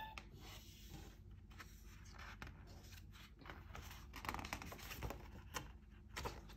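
Faint rustling and soft scrapes of a picture book's pages being handled and turned, with a few slightly louder rustles in the second half.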